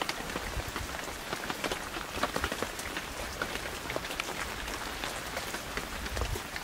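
Steady rain falling, with the close, irregular ticks of many separate drops.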